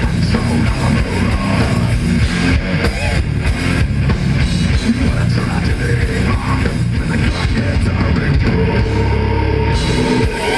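Death metal band playing live: distorted electric guitars over bass and a drum kit, loud and unbroken.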